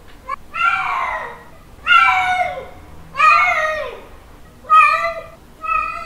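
Domestic cat giving a run of mating calls: about five drawn-out yowls in a row, each one bending down in pitch at its end.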